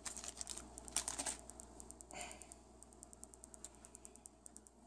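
Soft handling noise of a coiled patch cable being taken from its plastic bag: a few light rustles and small clicks, loudest about a second in and again just after two seconds.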